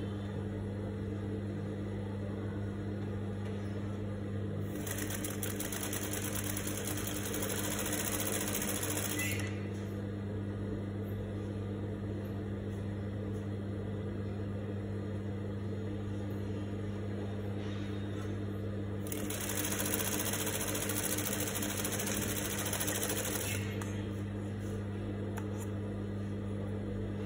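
Juki industrial sewing machine stitching a seam in cotton fabric, running in two bursts of about four and a half seconds each, the first about five seconds in and the second about nineteen seconds in, over a steady low hum.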